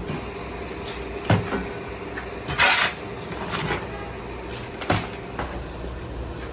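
Metal utensil knocking on a pan twice and scraping briefly in between, over a steady low hum.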